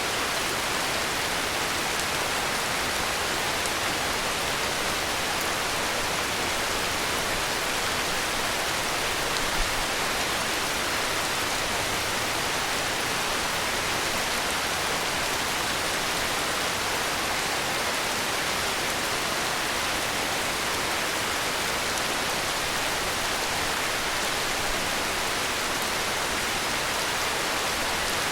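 Heavy rain falling steadily, an even hiss with no break, and a single brief low thump about ten seconds in.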